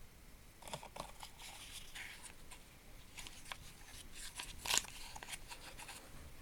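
Faint handling noises as small tools are picked up and put down: scattered light clicks and rustling, with one sharper click about four and a half seconds in.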